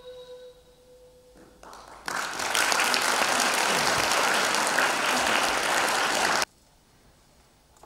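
The last held note of a ney (Turkish end-blown reed flute) fades out at the start. About two seconds in, an audience applauds for roughly four seconds, and the applause cuts off abruptly.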